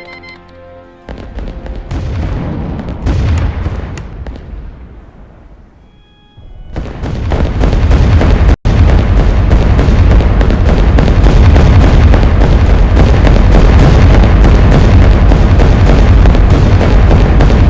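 Plane engine noise swelling and fading over a few seconds, then a much louder, steady roar building about six seconds in and holding, with a very brief cut-out shortly after it peaks.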